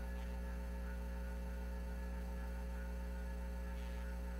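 Steady low electrical mains hum, unchanging throughout.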